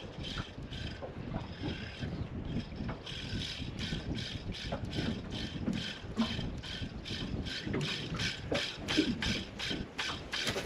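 Spinning reel cranked quickly, its rotor making a regular whirring swish with each turn of the handle, about three to four a second, as a lure is retrieved fast. Wind and water rumble underneath.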